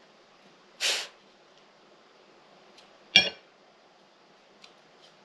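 Kitchen knife and dish while peeling oven-baked chestnuts: a short scrape about a second in, then a sharp clink with a brief ring about three seconds in.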